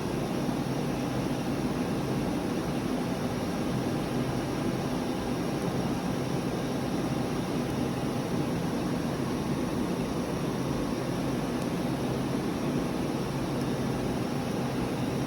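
Steady hum and noise of running machinery, with a few faint steady tones and no change in level.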